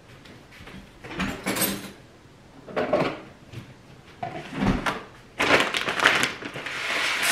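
Rustling and knocking as dry jasmine rice is handled, with a low thud partway through, then from about five seconds in a dense rattling hiss of rice grains pouring into a bowl.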